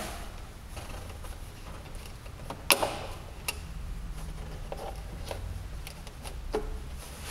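A few scattered sharp clicks and knocks, the loudest about three seconds in, over a low steady hum, as someone fumbles about in a dark room.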